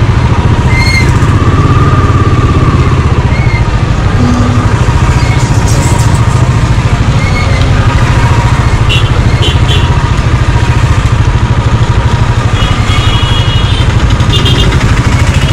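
Royal Enfield motorcycle running steadily on the move, a dense low rumble. A few short high-pitched tones come through about nine seconds in and again near the end.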